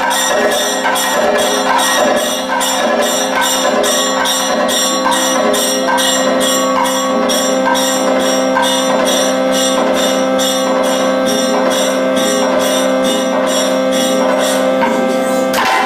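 Kathakali stage music: small hand cymbals (ilathalam) strike a steady beat of about three strokes a second over steady held tones, with a melody line moving above.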